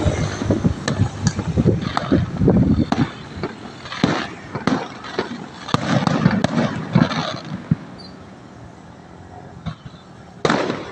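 Fireworks going off: irregular pops and cracks over a low rumble that die down past the middle, then a loud burst near the end.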